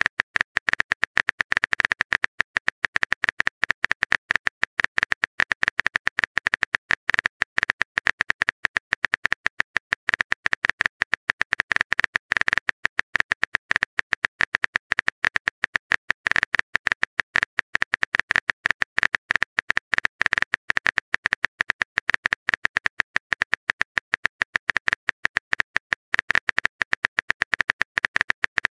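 Rapid phone-keyboard typing clicks, a fast continuous patter of short taps as a text message is typed out.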